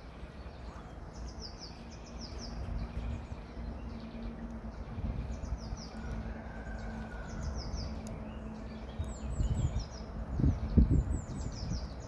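Small birds chirping in the background in repeated clusters of short, quick falling notes, over a steady low outdoor rumble. A few dull low thumps come about ten seconds in.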